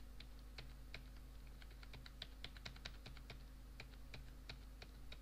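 Faint, irregular clicking of computer keyboard keys and mouse buttons, several clicks a second, over a steady low electrical hum.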